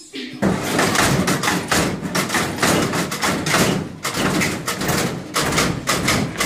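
1964 Chevrolet Impala lowrider hopping its front end on hydraulic suspension: a rapid, irregular run of loud thuds as the car drops and bounces, starting about half a second in.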